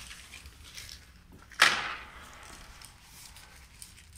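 One sharp clack about a second and a half in, dying away quickly, with faint handling noises around it.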